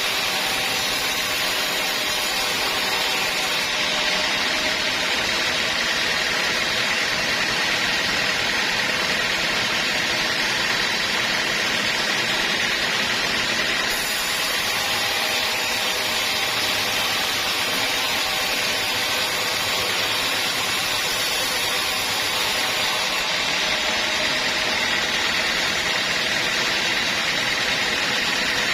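Sawmill band saw running steadily, a continuous loud machine noise with a steady high whine.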